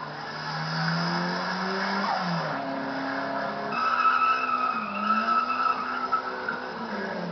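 Race car engine running hard, its pitch rising and dropping. From about four seconds in, tyres squeal steadily over it. The old videotape recording makes it sound dull.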